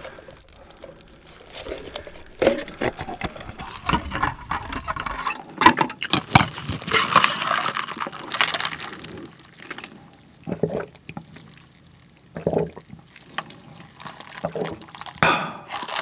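Plastic lid being worked off a paper fountain-drink cup with a straw through it: irregular crackling and clicking of the lid, with liquid sounds from the drink inside. Scattered knocks follow in the second half.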